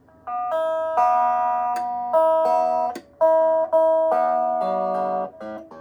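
Newly assembled Fesley Telecaster-style electric guitar kit, plugged in and played for its first test: about ten picked notes and small chords in a loose run, each left to ring briefly.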